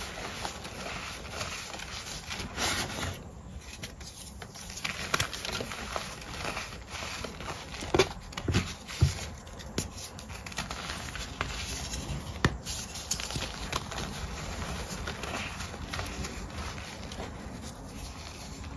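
Slices of gym chalk squeezed and broken apart by hand: continuous soft, powdery crunching and crumbling, with a few sharper snaps near the middle.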